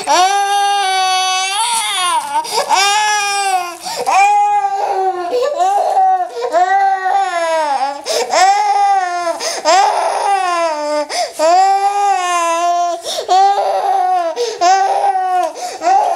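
A one-year-old crying hard after her vaccination shots: a steady run of loud, high wails, each about a second long, with brief catches of breath between them.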